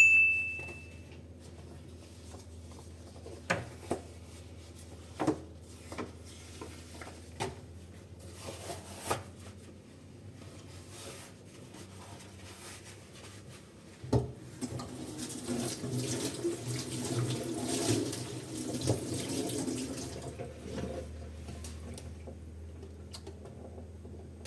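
Dishes and utensils clinking now and then in a kitchen sink, then the tap running water into the sink for several seconds from about halfway through. A short chime sounds right at the start.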